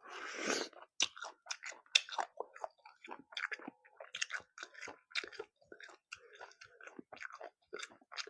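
Close-miked ASMR eating: a loud crunching bite into a raw vegetable at the start, then crisp, irregular crunching chews.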